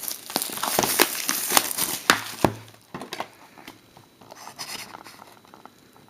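Wrapping on a box of trading cards crinkling and tearing as it is opened by hand, busy for the first couple of seconds, then dying down to lighter rustling and handling.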